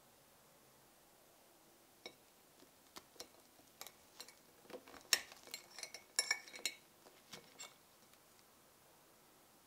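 Metal fork tapping and scraping against a ceramic plate as it cuts through a cream-filled choux pastry: a run of small clicks and clinks starting about two seconds in, thickest and loudest around five to seven seconds in.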